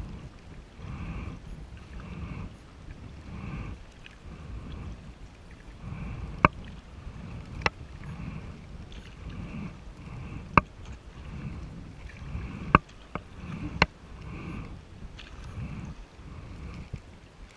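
Kayak paddle strokes, a steady swish of water about once a second, with several sharp knocks of the paddle against the kayak in the second half.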